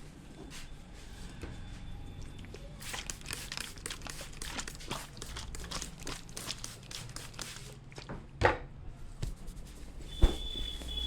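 Close-up head massage handling sounds: rapid, irregular rustling and crinkling of hands working over hair and skin, with a louder brushing rush about three quarters of the way through and one sharp click near the end.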